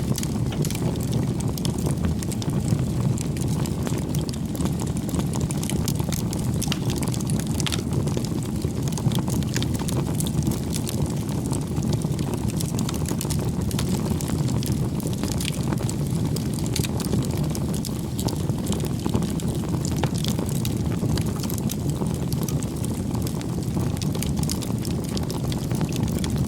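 Bonfire burning with a steady low rumble of flame and frequent sharp crackles and pops from the burning wood.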